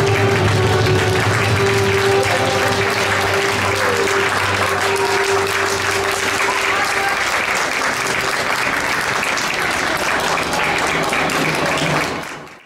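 Audience applauding over background music; the music fades in the first few seconds as the clapping takes over, and everything fades out quickly at the very end.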